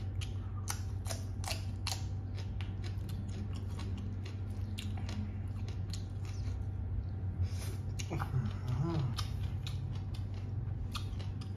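Close-up chewing and crunching of green papaya salad, a run of irregular crisp mouth clicks and crunches, over a steady low hum. A brief hummed sound comes about eight seconds in.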